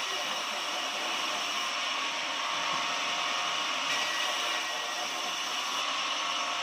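Sawmill running steadily: a continuous machine whine and hiss with several steady high tones and no breaks.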